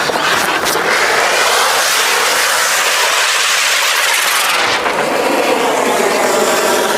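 Anar (flower-pot) fireworks burning, spraying sparks with a loud, steady hiss.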